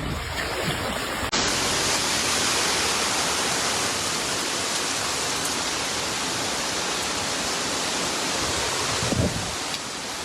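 Steady rush of water noise that sets in abruptly about a second in and holds even throughout.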